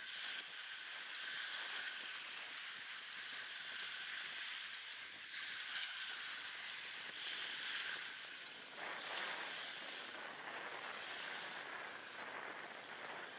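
Small waves breaking and washing up a shelly beach, swelling and easing, with wind on the microphone. The sound is thinned by noise reduction and a high-pass filter.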